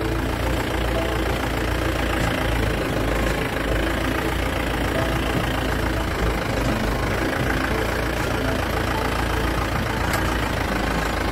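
Safari vehicle's engine idling steadily.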